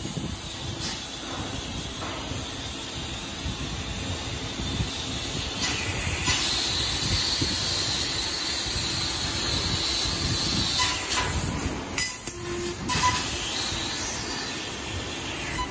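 Fiber laser cutter cutting 15 mm steel plate: a steady hiss from the cut. It breaks off briefly about twelve seconds in, with a couple of short tones.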